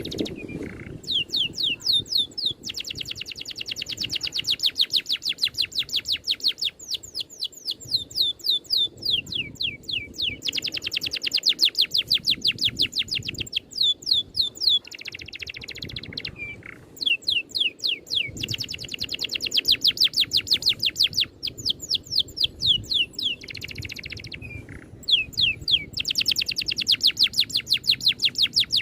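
A songbird singing long, rapid rolling trills. Each trill is a fast run of repeated high, downward-sweeping notes, given in phrases a few seconds long with brief pauses between them.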